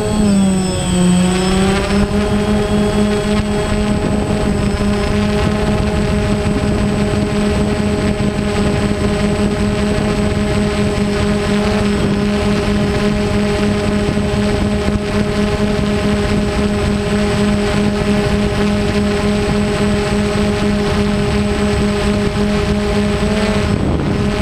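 Multirotor drone's electric motors and propellers whining steadily at one pitch. The pitch dips and climbs back about a second in, and rises briefly near the end as the drone's thrust changes.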